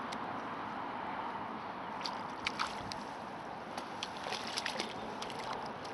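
A hooked perch splashing at the surface as it is reeled in to the bank, with small irregular splashes starting about two seconds in, over a steady background hiss.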